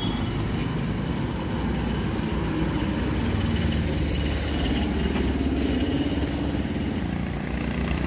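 A motor vehicle engine running steadily close by: a continuous low rumble.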